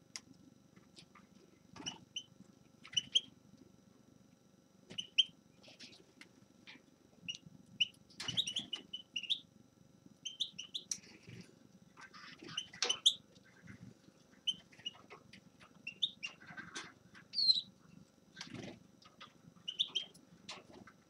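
A finch calling in short, high chirps and twitters at irregular intervals, busier in two clusters a third and about two thirds of the way through.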